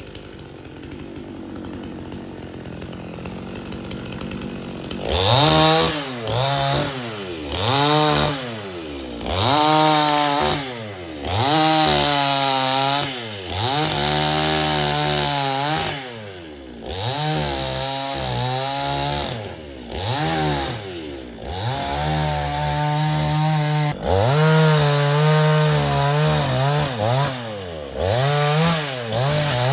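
Two-stroke chainsaw, faint at first, then from about five seconds in revved hard again and again, its pitch rising and falling every second or two.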